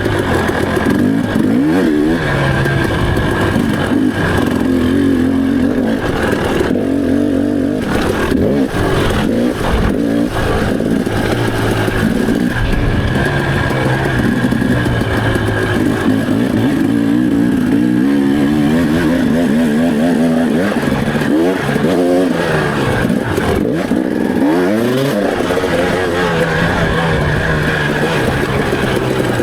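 Off-road motorcycle engine being ridden hard. Its pitch climbs and drops again and again as it accelerates and backs off.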